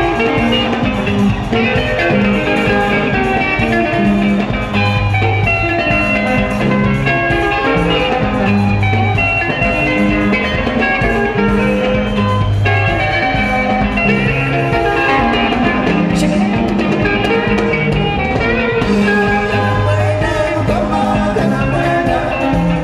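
Live Zimbabwean sungura (dendera) band music: interlocking electric guitars over a repeating bass line and drums, played steadily throughout.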